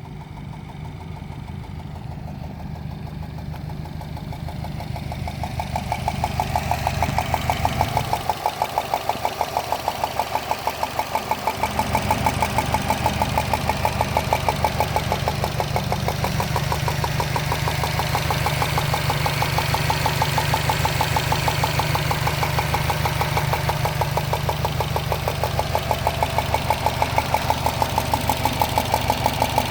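2013 Subaru Impreza WRX's turbocharged 2.5-litre flat-four idling with a loud, rapid, even ticking, likened to a golf ball sliding around inside the engine. The owner places the tick near the turbo but cannot find its cause. The ticking grows louder over the first several seconds.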